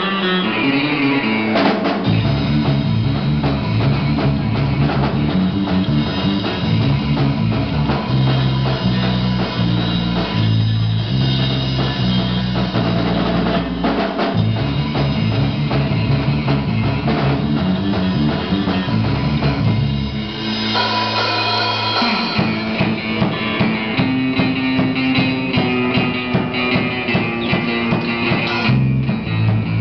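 Live rock band: electric guitars through amplifiers over a drum kit. The full band with bass drum comes in about two seconds in, and the deepest notes drop out briefly about twenty seconds in before the band picks up again.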